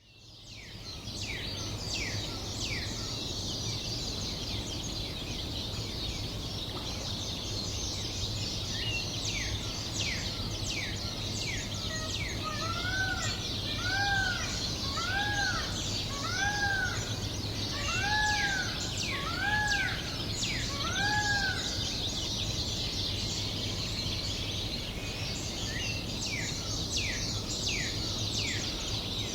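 Dawn chorus of many birds: quick, high, downward-sweeping song notes repeat throughout over a steady low hum. In the middle, another bird gives about eight evenly spaced, arching calls, roughly one a second.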